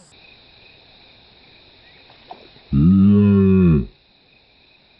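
A man's drawn-out, low "ooh" exclamation about three seconds in, lasting about a second and rising then falling in pitch, over the steady high chirring of crickets.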